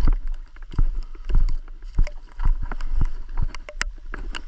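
Irregular knocks and crunches, several a second and unevenly spaced, from footsteps and handling on a rocky riverbank, over a steady low rumble.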